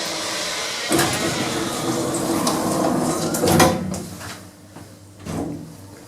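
Sliding doors of a Schindler lift in motion, with a few knocks and a louder clunk about three and a half seconds in.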